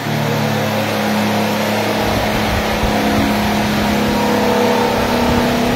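Steady machine hum with several held tones, a low rumble joining in about two seconds in.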